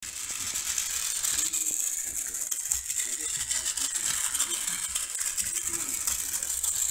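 Plarail toy Shinkansen's small battery motor and plastic gears running as it circles a loop of plastic track: a steady, high-pitched rattling whir.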